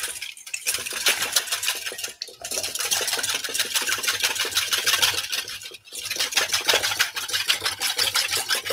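Wire whisk beating rapidly against a stainless steel mixing bowl in fast, even strokes, pausing briefly about two seconds in and again near six seconds. Olive oil is being whisked into lemon juice and mustard to emulsify a vinaigrette.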